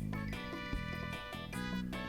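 Background music: pitched instrumental notes over a steady beat, changing about every half second.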